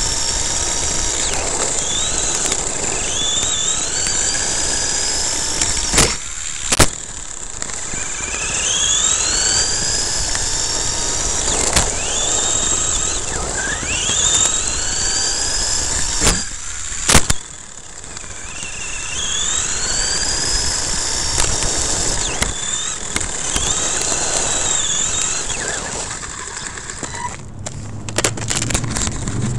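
Onboard sound of an Ansmann SC4 radio-controlled short course truck driving over rough ground. Its electric motor whines up in pitch with each burst of throttle, and about five sharp knocks come as the truck bumps and lands. The motor falls quiet near the end.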